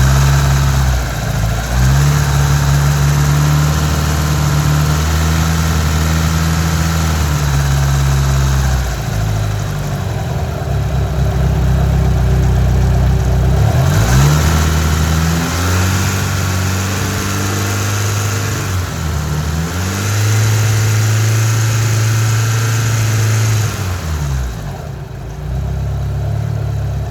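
First-generation DSM car engine revved up and held at a raised speed several times, sliding back down between holds. The owner hears a chirping noise from it only at about 3,000 rpm.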